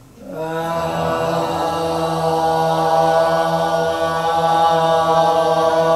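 Voices holding a long, steady sung tone on one pitch, starting about a third of a second in. It is a breath-length exercise in Korean traditional pansori-style vocal training, where the tone is sustained for as long as one breath lasts.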